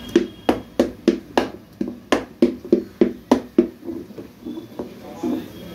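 Masher knocking against the side of a steel bowl while beating thick khichda, a rapid run of sharp knocks about three a second that grows fainter after about four seconds.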